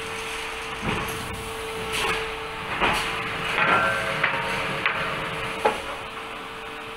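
Pallet nailing line machinery running: a steady hum under irregular sharp knocks and clanks, roughly one a second.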